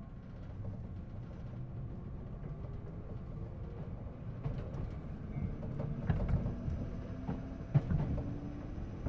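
JR East 211 series 3000 subseries electric train heard from inside the passenger car, pulling away and gathering speed: the traction motors' hum rises slowly in pitch as the running noise grows. From about six seconds in, the wheels give a few heavy knocks over the track, the loudest near the end.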